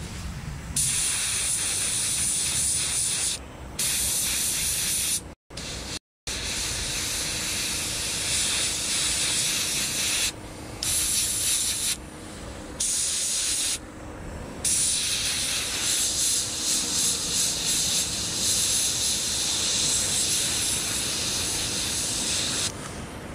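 Airbrush spraying paint: a loud airy hiss in stretches of a few seconds, broken by short pauses as the trigger is let off, stopping shortly before the end.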